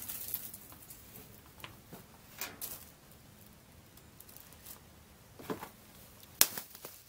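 Faint crunching and rustling of footsteps and handling on dry leaf litter, with a few scattered clicks; the sharpest click comes about six and a half seconds in.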